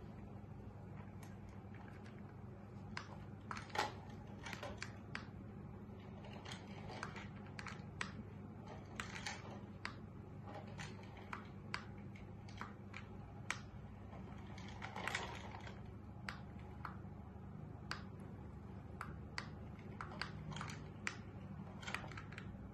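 Irregular light clicks and taps as a Persian cat paws at a remote-control toy mouse on a tile floor: claws and the toy knocking on the tiles. A steady low hum runs underneath.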